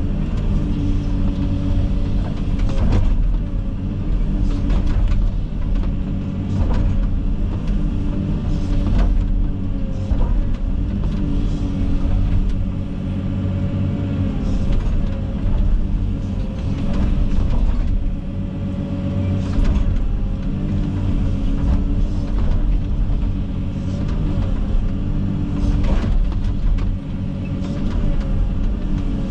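Komatsu 360 excavator's diesel engine running steadily under load, with a wavering hydraulic whine over it. Sharp cracks and knocks come at irregular moments as brush is pushed and broken.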